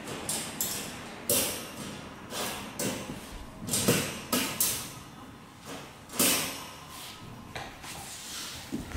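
A long steel rod clinking and scraping against the wire eyelets as it is threaded down through them, pinning the panels of a folding wire dog crate together. The clinks come irregularly, several seconds apart, with the loudest about 4 and 6 seconds in.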